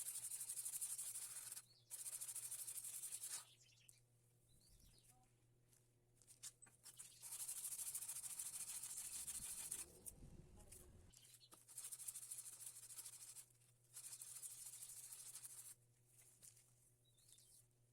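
Thickness planer knife being sharpened by hand: the blade scraping back and forth against an abrasive in about five stretches of one and a half to three seconds, with short pauses between.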